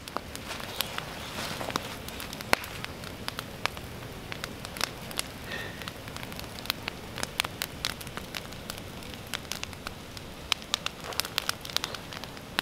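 Bonfire of branches and twigs burning, crackling with many irregular sharp pops over a steady hiss.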